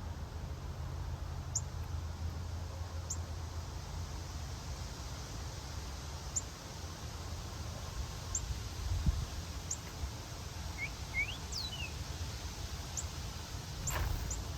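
A songbird giving short, high, sharp chip notes every second or two, with a few lower sliding call notes about eleven seconds in, over a steady low outdoor rumble.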